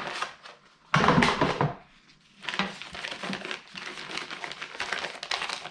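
Packing paper and wrapping crinkling and rustling as a lens box is unpacked by hand. A louder rustle comes about a second in, then a brief pause, then steady crackly handling of the paper.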